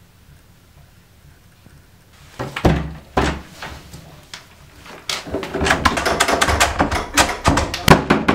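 Two heavy thumps about half a second apart, then a fast, irregular clatter of knocks that builds up, with the ring of a small room.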